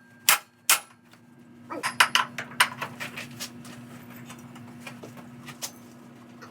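Two sharp hammer blows on metal with a ringing ring, then lighter clinks and rattles of metal tools and parts being handled.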